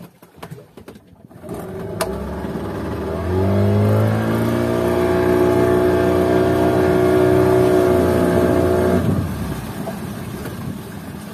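A boat's outboard motor is throttled up. The engine note rises over a couple of seconds, holds steady at high revs, then drops back to a low idle near the end.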